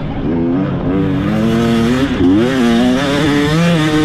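Off-road race vehicle engine running hard, its pitch rising and falling every second or so as the throttle is worked.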